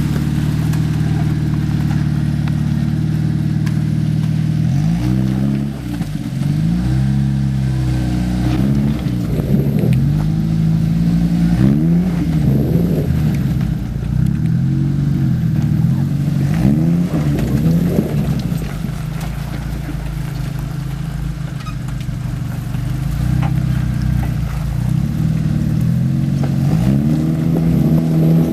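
1992 Jeep Wrangler YJ's 2.5-litre four-cylinder engine, heard from inside the cab. It runs steadily for about five seconds, then revs up and down over and over as the throttle is worked.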